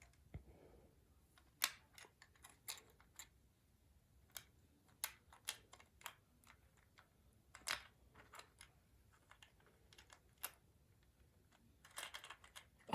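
Faint, scattered sharp clicks and taps of hard plastic toy parts being handled and pushed together as a Buzz Lightyear figure's wing is fitted back onto its wing pack, with a quick flurry of clicks near the end.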